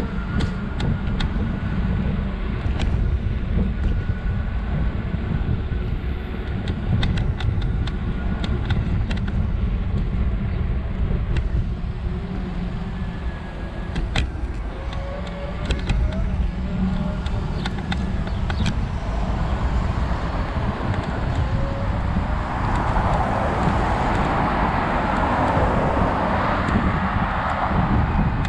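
Wind buffeting the microphone and road rumble while riding a scooter along a city street, with scattered clicks throughout. Car traffic passes, with a rushing sound that swells in the last several seconds.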